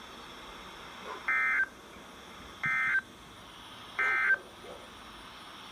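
Emergency Alert System end-of-message signal: three identical short bursts of warbling digital data tones (SAME codes), each about a third of a second long and a little over a second apart, marking the end of the test broadcast.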